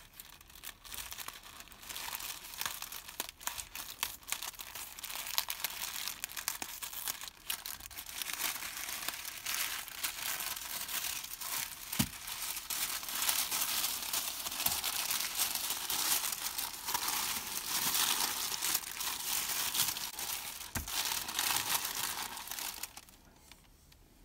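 Pink tissue paper crinkling and rustling steadily as it is unwrapped by hand, dying away about a second before the end.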